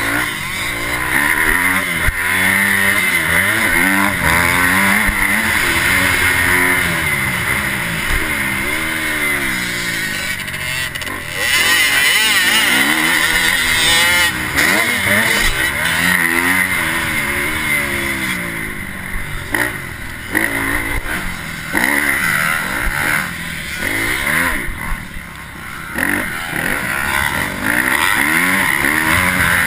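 Dirt bike engine heard from a helmet-mounted camera while racing on a motocross track, revving up and dropping back again and again as the rider works the throttle through the gears and corners. About two-thirds of the way through the engine note drops and turns choppy for several seconds before picking back up.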